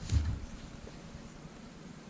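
A single dull, low thump just after the start, then faint steady background noise.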